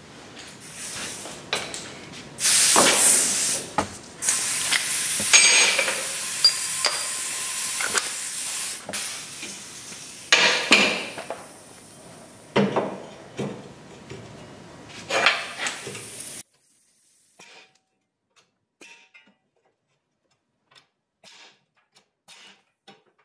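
Pneumatic air chisel fitted with a hammer bit, running in several bursts to hammer leftover rivets out of a steel truck cab-mount bracket, its air exhaust hissing. The longest burst lasts about five seconds; the hammering stops after about sixteen seconds, leaving near silence with a few faint clicks.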